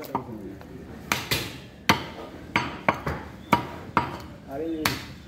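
Heavy butcher's knife chopping beef on a round wooden chopping block: a string of sharp, irregular knocks, roughly two a second.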